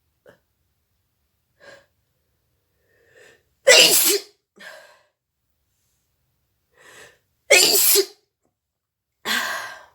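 A woman sneezing three times, each loud, sharp sneeze coming after a short breath in, with faint sniffs and breaths between. The sneezes are provoked by tickling her nose with a thin broom straw, not by a cold.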